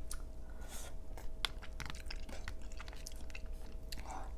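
Close-miked chewing of a mouthful of creamy crawfish pasta, with many scattered short, sharp wet mouth clicks.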